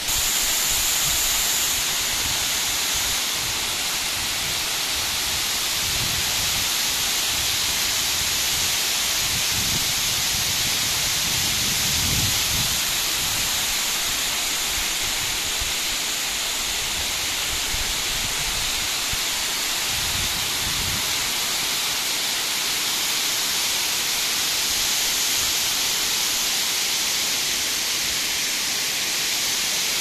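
Water pouring in a broad sheet over a dam's stepped spillway and splashing onto the rock below: a steady, heavy rushing hiss, with a few brief low rumbles mixed in.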